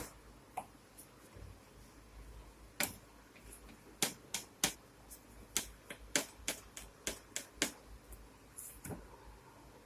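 A series of sharp, irregular clicks and knocks, about a dozen, bunched in the middle seconds: hard kitchen tools tapping against each other or a board while chapati is being made.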